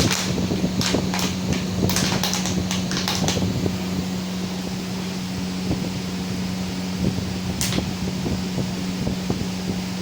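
Plastic bottle crackling and clicking in a quick cluster over the first few seconds, with one more crackle near the end, as a dog plays with it; a steady electrical hum runs underneath.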